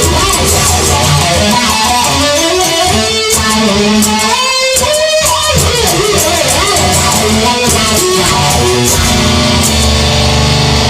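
Instrumental break in a song: guitar music, with a lead line whose notes bend up and down over a steady low accompaniment.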